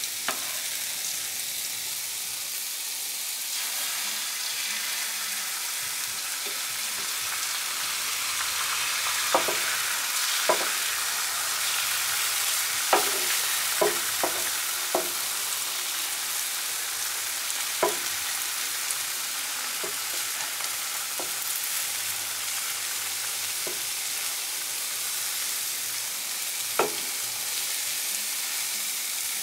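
Beaten egg sizzling as it is poured onto a hot electric flat-top griddle at 385°F, a steady high frying hiss. A handful of sharp ticks are scattered through the middle and near the end.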